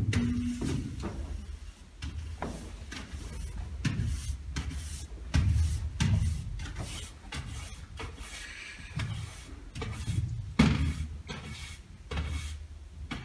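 Push broom swept in repeated strokes across a wooden stage floor, each stroke a short scrape with a low thump of footsteps on the boards. A hummed note breaks off just after the start.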